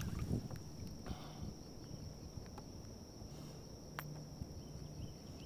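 Quiet outdoor ambience with a steady high-pitched insect drone, such as crickets, and faint low rumble. One sharp click comes about four seconds in.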